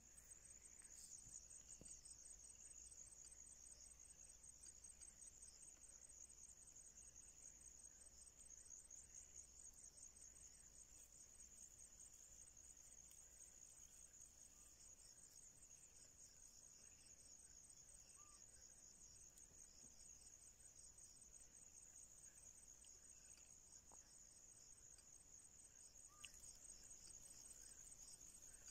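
Crickets chirping in a steady, faint, high-pitched trill of rapid pulses that never breaks.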